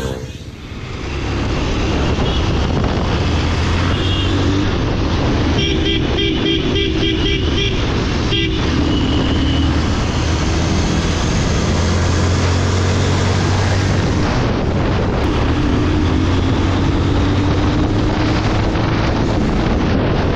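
Bajaj Pulsar 220F single-cylinder motorcycle engine running steadily at road speed, with wind rushing past the bike-mounted camera. A vehicle horn sounds in a quick series of short toots about six seconds in, with a few single beeps around it.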